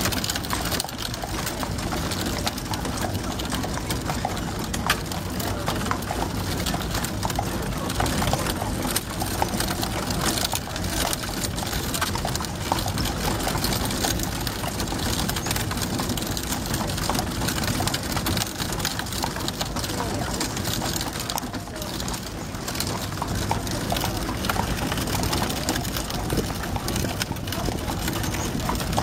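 Horse's hooves clip-clopping on a sealed road as it pulls a buggy, with voices of people in the background.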